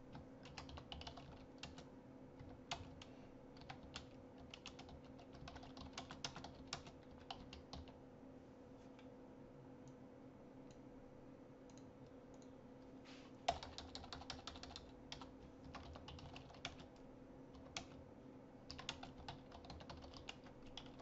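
Faint typing on a computer keyboard: irregular runs of keystrokes with a lull of a few seconds in the middle, then a sharper key press as the typing resumes.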